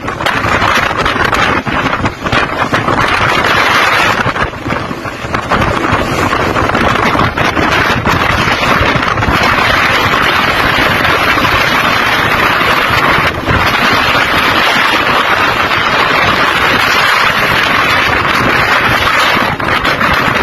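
Storm wind buffeting the microphone over heavy seas: a loud, steady rush of wind and water noise that dips briefly a few times.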